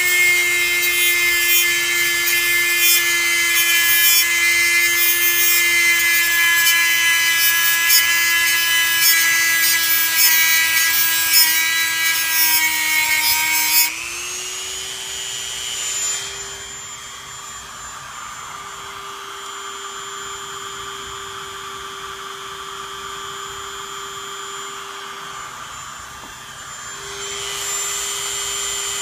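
Dremel rotary tool with a cut-off wheel grinding a notch into a metal motor shaft: a steady motor whine under a harsh scraping grind. About halfway through the wheel comes off the shaft, the grinding stops and the tool spins free, its whine a little higher and quieter; near the end the sound builds again as the wheel goes back to the shaft.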